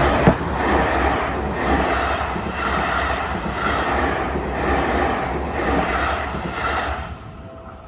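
Seibu 40000 series electric train rushing past over a level crossing: a loud clatter of wheels on rail that pulses about once a second as the cars go by, then falls away about seven seconds in. As it fades, the crossing's warning bell is left ringing faintly.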